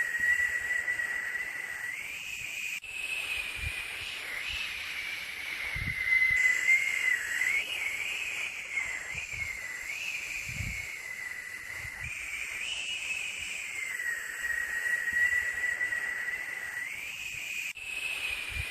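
White noise for sleep: a continuous hiss with a whistling tone in it that wavers slightly in pitch. The sound changes abruptly a few times, where the recording is looped.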